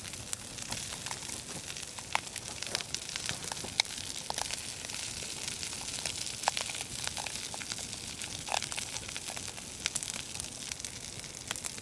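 Food sizzling in a cast iron skillet over a campfire: a steady hiss broken by many small sharp pops and crackles.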